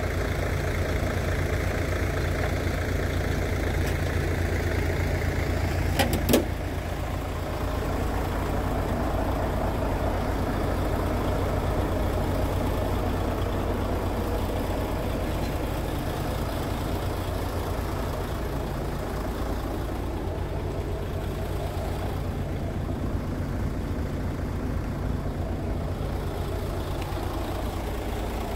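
Scania R-series tractor unit's diesel engine idling steadily, with two sharp clicks close together about six seconds in.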